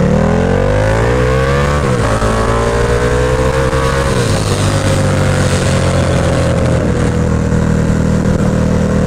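KTM 1290 Super Duke R's V-twin engine accelerating hard through the gears: the note climbs, drops at a shift about two seconds in, climbs again, then drops about four seconds in and settles to a steady, slowly falling note as the bike eases off from speed.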